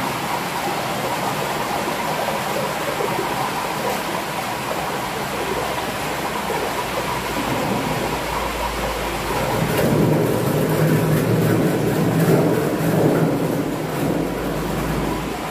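A vacuum fryer's vacuum system running as a steady rushing noise with a faint whine, the sign of the sealed chamber being pumped down. It gets louder about ten seconds in, with a low rumble underneath.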